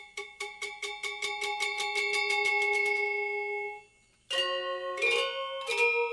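Balinese music: rapidly repeated strikes on one ringing, bell-like note, growing denser, then fading out about four seconds in. After a short pause, a melody of several struck, ringing notes begins.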